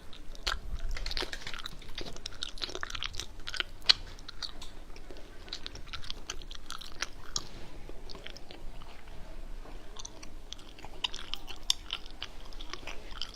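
A person eating close to the microphone: steady wet chewing and biting, with many small crunches and smacks coming irregularly throughout.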